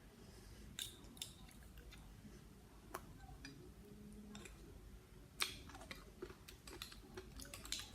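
Scattered sharp cracks and clicks of hard blue swimming crab shell being bitten and chewed, the loudest crack about five and a half seconds in and a quick run of smaller ones near the end.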